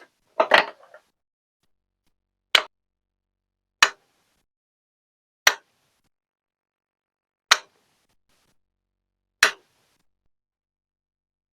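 A short cluster of clicks about half a second in, then five single sharp taps spaced a second or two apart, each dying away quickly.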